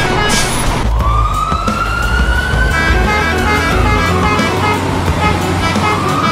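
A siren wailing: a single tone that climbs slowly from about a second in, then sinks, and starts to climb again near the end, over background music with short repeated notes.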